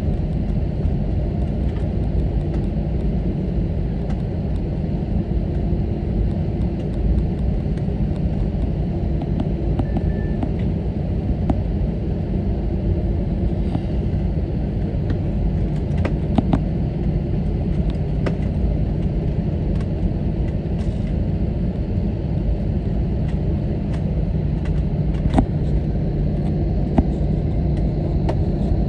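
Cabin noise of an Airbus A321neo on the ground after landing, engines at idle: a steady low rumble with a faint whine, and scattered small clicks and rattles from the cabin.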